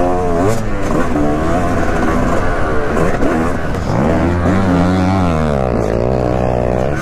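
Yamaha YZ250 two-stroke single-cylinder motocross engine at race pace, its pitch rising and falling repeatedly as the throttle is worked and the gears change.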